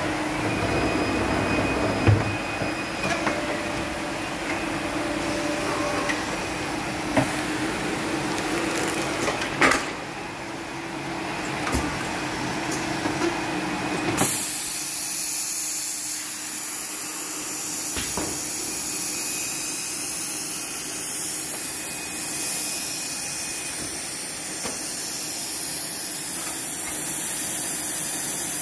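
Polar automated paper-cutting line with jogger and racking system running: a steady machine hum with a few sharp knocks. About halfway through the sound gives way to a loud, steady high hiss.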